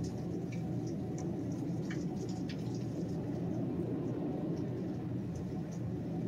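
Heavy rain coming down in sheets: a steady, unbroken rush of downpour, with scattered sharp drips and splashes close by.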